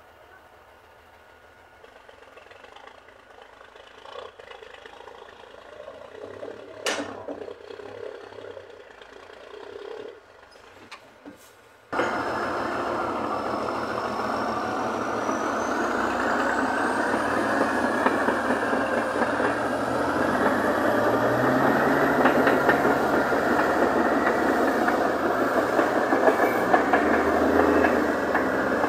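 Heavy diesel engines of a crawler bulldozer and a loaded log truck working hard together to haul the truck up a steep grade. The sound is faint at first, then suddenly loud about twelve seconds in, with a high whine that rises a few seconds later and the engines rising in pitch near the end.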